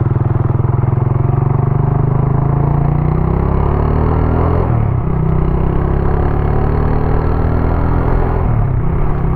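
Tiger 120 cc motorcycle engine pulling away and accelerating, its pitch climbing steadily, then dropping briefly about halfway through and again near the end as the gears shift up.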